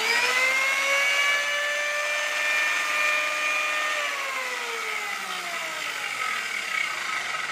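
Corded electric hand planer spinning up with a rising whine and running at a steady pitch as its blades cut into a wooden block. It then winds down with a slowly falling whine from about four seconds in.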